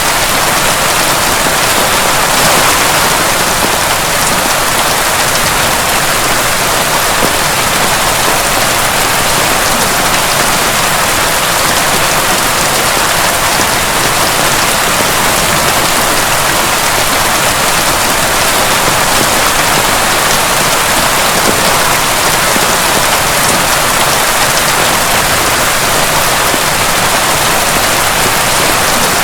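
Heavy rain falling steadily, an even, dense hiss of drops with no thunder.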